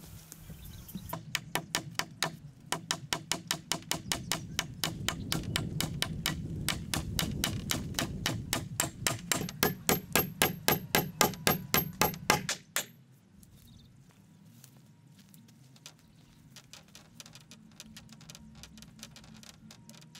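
Rapid, even strikes of a hand tool on wood or bamboo, about four a second, stopping abruptly about two-thirds of the way through; faint scattered taps follow.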